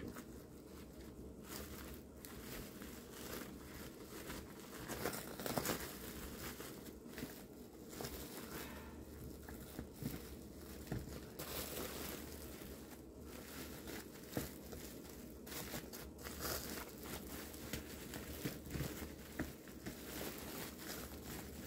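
Crinkling and rustling of the foil outer jacket of an insulated flexible vent duct being handled and pressed by gloved hands, in irregular short bursts.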